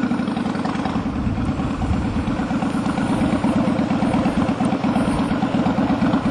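Kawasaki Vulcan Mean Streak 1600's V-twin engine running steadily at low speed as the bike rolls slowly, with an even, rapid pulsing beat, heard from the rider's seat.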